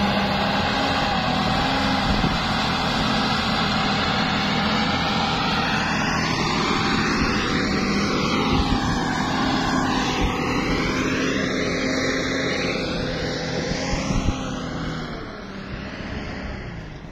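Heavy truck diesel engine of a truck-mounted cable tool drilling rig running steadily, fading near the end.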